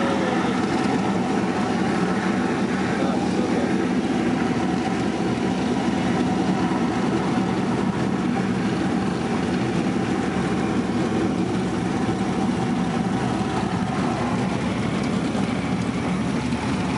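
Light single-engine propeller plane's piston engine running at low power, heard from inside the cockpit as the plane rolls along a dirt airstrip after landing. A steady, even drone that does not change in pitch or loudness.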